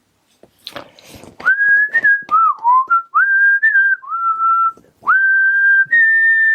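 A person whistling a slow tune of long held notes, most of them sliding up into pitch, after a few soft clicks and rustles in the first second or so.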